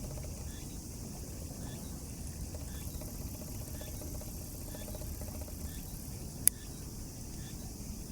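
Steady outdoor ambience: a low rumble under a high, even insect-like hiss, with one sharp click about six and a half seconds in.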